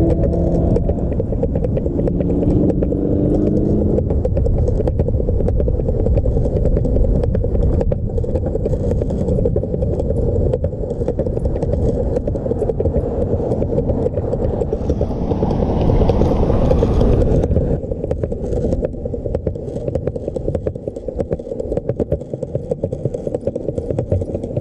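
Longboard wheels rolling on a concrete sidewalk: a steady low rumble with frequent short clicks. It swells briefly and grows hissier about fifteen seconds in.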